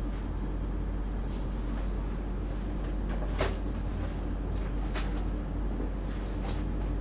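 Steady low machine hum, with about four light clicks or knocks spaced through it.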